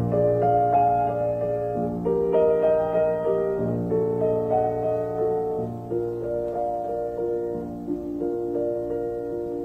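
Background piano music: a slow melody of held notes and chords, changing every second or two over a steady low bass note.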